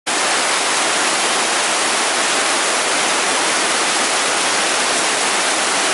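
Heavy downpour of rain: a loud, dense, steady hiss of rain pouring down.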